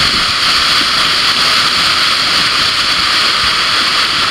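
Steady, loud rush of water from a surf simulator's wave machine, a thin sheet of water pumped fast over the riding surface.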